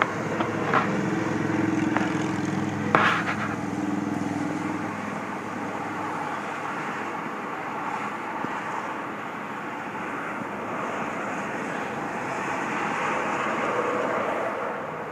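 Steady outdoor background noise, with a low hum in the first few seconds and one sharp knock about three seconds in.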